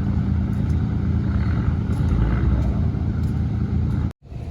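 A boat engine running steadily at a constant low pitch. The sound cuts out abruptly about four seconds in, then resumes a little quieter.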